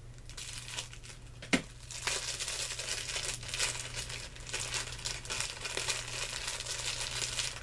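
Tight packaging wrap being crinkled and torn open by hand, an irregular crackling as it resists opening, with one sharp snap about one and a half seconds in.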